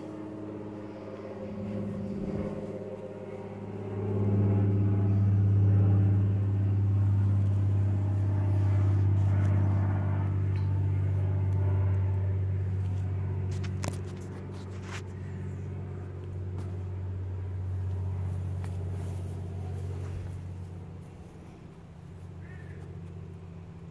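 A steady low motor hum, like an engine running, that swells about four seconds in and fades near the end, with a few faint clicks in the middle.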